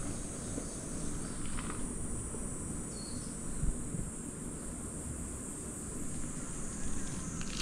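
Cicadas droning steadily in summer woods, a continuous high-pitched buzz, over a low rumble, with one soft thump near the middle.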